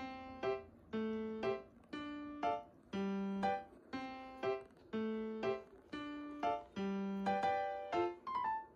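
Background piano music: a simple melody of single notes, each fading away, about two notes a second.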